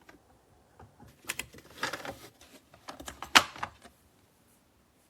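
A run of short, sharp clicks and clatters of hard plastic parts being handled, the loudest a little over three seconds in.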